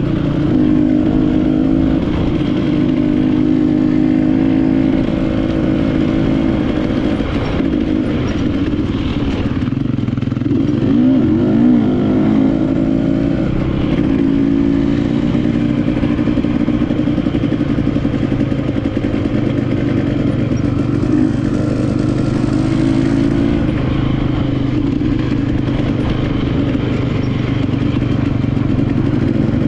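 KTM enduro motorcycle engine running continuously as the bike is ridden off-road, its pitch rising and falling with the throttle. The engine revs up and down noticeably about a third of the way in.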